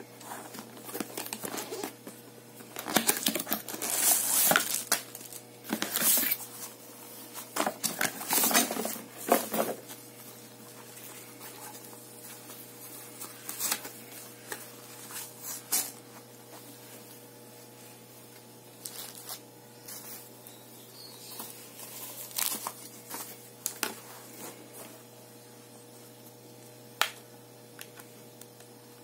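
Clear plastic packaging crinkling and rustling as it is pulled open and handled, in bursts that are loudest in the first ten seconds. After that come scattered light taps and clicks of the plastic monitor parts being picked up.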